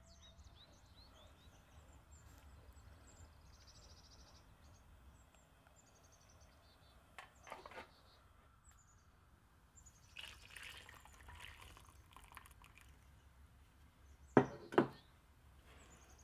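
Soft kitchen sounds of a silicone spatula stirring and mixing a liquid batter, with faint bird chirps in the first few seconds. Two sharp knocks close together about fourteen seconds in are the loudest sounds.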